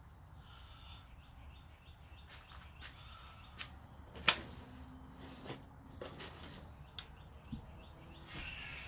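Scattered light clicks and clinks of hand work on car parts, fasteners and panels being handled during an A/C condenser reinstall, with one sharp knock about four seconds in.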